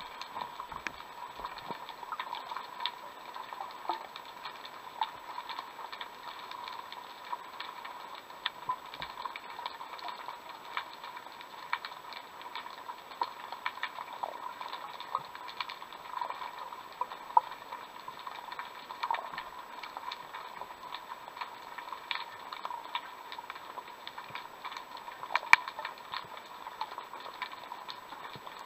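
Underwater ambience: a steady crackle of many small irregular clicks and pops, with a sharper click near the end.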